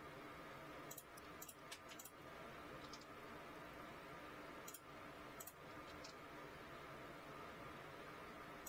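Near silence with faint room hum, broken by about eight short, sharp clicks of a computer mouse and keyboard in the first six seconds, then quiet clicking stops.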